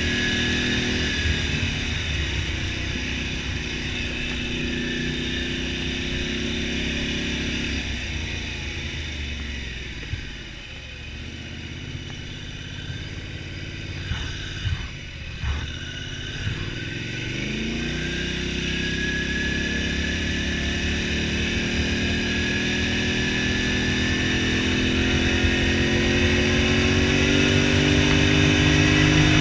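Polaris Sportsman XP 1000 ATV's twin-cylinder engine running while riding. It eases off to a low, quieter note about a third of the way in, with a few thumps around the middle, then climbs steadily in pitch and loudness as it picks up speed again.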